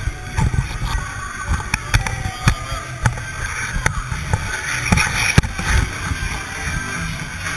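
A packed street crowd, many voices talking and shouting at once, with scattered sharp clicks and knocks and low rumbling thumps.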